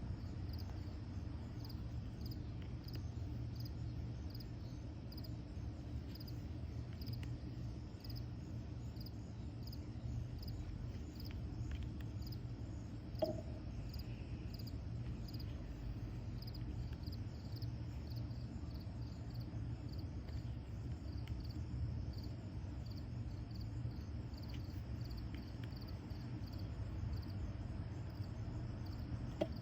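A cricket chirping steadily, short high chirps about once a second, over a low constant hum, with a faint click about halfway through.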